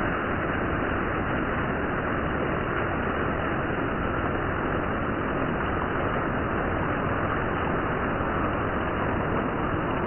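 Heavy rain pouring onto asphalt: a dense, steady hiss of countless drops splashing on the wet ground.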